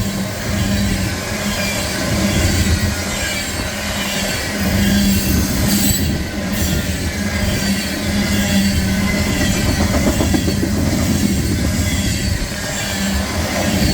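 CSX mixed freight train rolling past close by, its wheels and cars making a steady loud rumble and clatter, with faint high wheel squeal drifting through.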